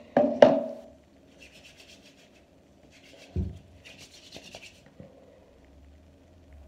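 Hands rubbing together, working gel between the palms, in several short bouts of soft swishing. A few loud knocks of handling come in the first second, and a dull thump comes midway.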